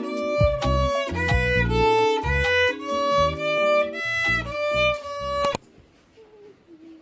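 Violin bowing a slow melody of sustained notes with slight vibrato over a lower accompaniment, cutting off abruptly about five and a half seconds in, after which only faint room sound remains.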